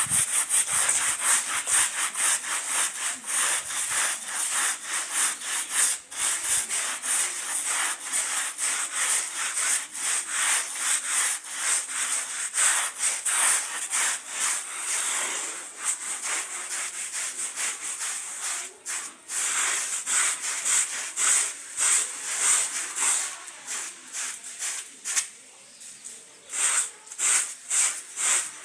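A carpet being scrubbed by hand with a brush: quick, repeated back-and-forth rasping strokes, pausing briefly near the end.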